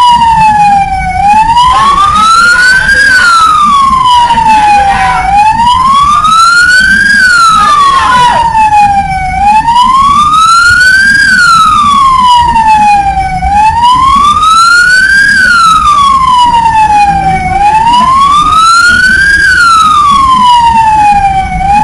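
Wailing siren, its pitch sliding slowly up and down in a steady cycle of about four seconds.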